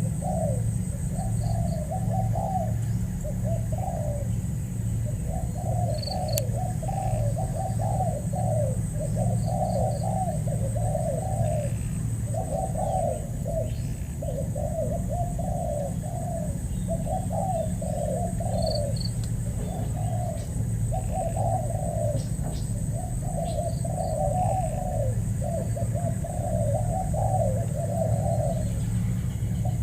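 Spotted doves cooing, phrase after phrase with hardly a pause, over a steady low hum.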